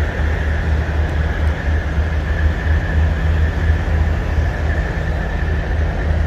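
Steady low rumble of idling diesel engines around parked semi trucks, with a thin, steady whine on top.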